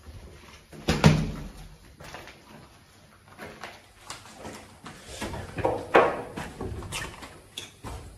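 A sharp bang about a second in, then scattered knocks, scuffs and footsteps on a rubble-strewn floor in a small room.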